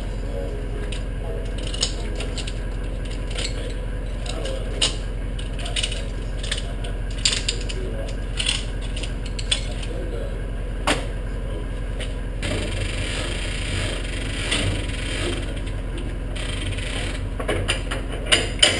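Scattered metallic clicks and knocks of work on a car's engine removal, over a steady low hum, with a rougher stretch of noise about two-thirds of the way through.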